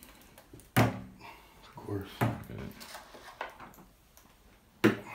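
Two sharp, hollow knocks about four seconds apart, one near the start and one near the end, with softer clatter and handling knocks between them: hard objects being bumped and set down in a small tiled shower.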